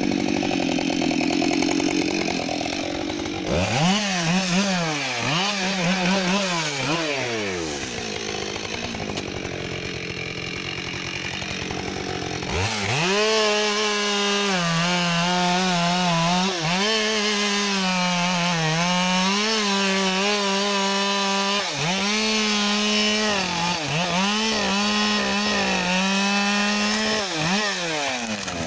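Husqvarna 572XP two-stroke chainsaw. A few seconds in it is revved up and down in short bursts, then runs quieter. About twelve seconds in it goes to full throttle and saws through a fallen tree trunk, the engine speed dipping slightly under load, and drops off near the end.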